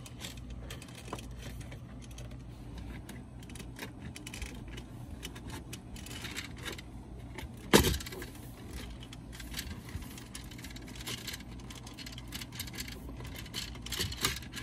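BMW F30 plastic dashboard trim panel being pried loose with a plastic trim tool: scattered small clicks and scrapes of plastic on plastic, with one sharp, loud snap about eight seconds in as a retaining clip lets go.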